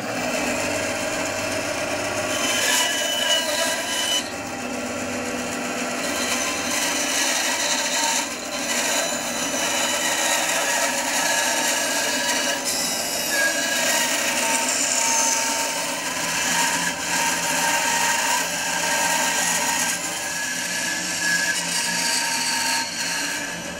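Bench bandsaw running and cutting through a wooden lure blank along a traced outline, a steady saw noise with held whining tones.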